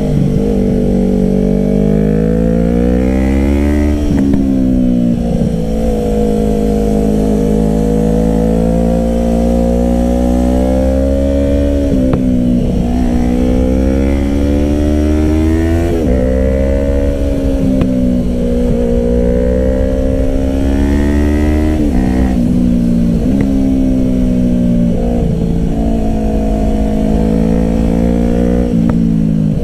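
Yamaha R3's parallel-twin engine through an M4 Street Slayer exhaust with the baffle in, heard on board while riding. The revs rise and fall through the bends, with several gear changes where the pitch drops sharply, about 4, 12, 16 and 22 seconds in.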